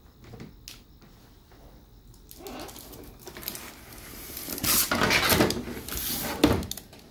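Handling noise: a few faint clicks, then rustling and scraping that grows louder in the second half and ends in a sharp knock.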